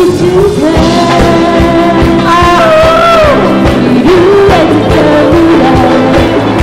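Live band music: a woman singing a melody over electric guitar and a steady drum beat.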